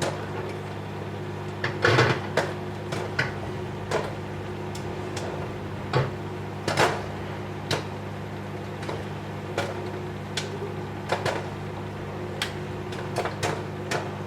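Popcorn popping inside a running Whirlpool microwave oven: scattered, irregular pops, sometimes two close together, over the oven's steady hum.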